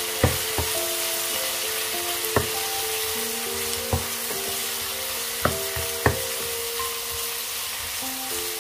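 Beef cubes sizzling in hot oil in a frying pan, stirred with a wooden spatula that knocks sharply against the pan about six times.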